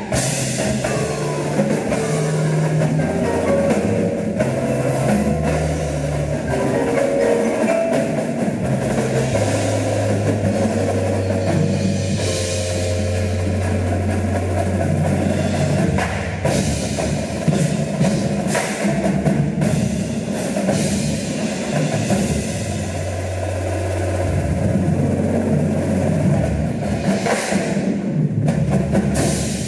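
An indoor marching percussion ensemble playing a loud passage: many drum hits over long, held low bass notes, with quicker pitched notes from keyboard mallet instruments above.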